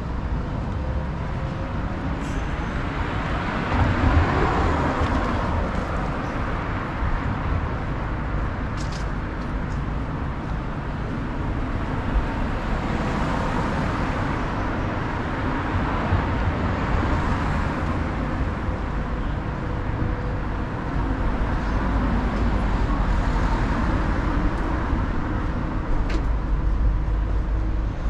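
Street traffic: a steady wash of road noise, with several cars passing close by one after another, each rising and fading over a few seconds, and a heavier low rumble in the latter part.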